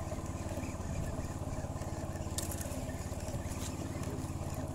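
A fishing boat's engine running steadily, with a fast even beat, as the boat is moved to reposition it. A single short click comes about halfway through.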